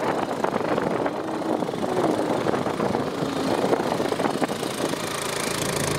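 Motorcycle engine running steadily while the bike rides along, heard from on the bike.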